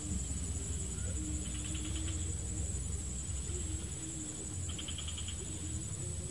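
Swamp insect chorus: a steady high-pitched insect drone with two short, rapidly pulsed chirping trills, over a faint wavering low hum and a low rumble.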